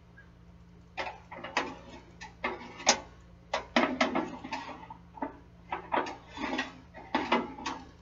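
Wire rack of an Oster toaster oven being pushed and pulled in its slots, clanking and rattling in an irregular run of sharp metal clicks.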